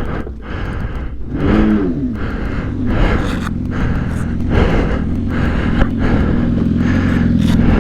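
Sport-bike engine running at low, steady revs, blipped once about one and a half seconds in so its pitch rises and falls back. A rushing noise sits under it.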